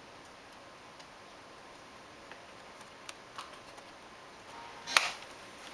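Plastic hinge cover of a Fujitsu Lifebook AH531 laptop being pressed back onto the base: a few faint clicks, then one loud, sharp snap near the end as its clips catch.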